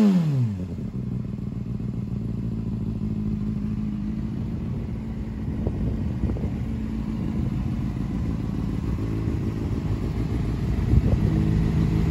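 2003 Honda CBR600RR's inline-four through a Scorpion aftermarket exhaust: the revs fall back from a blip in the first half second, then the engine idles steadily.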